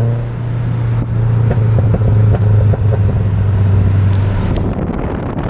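Subaru BRZ's flat-four engine heard through its exhaust, running with a steady low drone and scattered crackles. Near the end the sound changes abruptly to a rougher, noisier rumble.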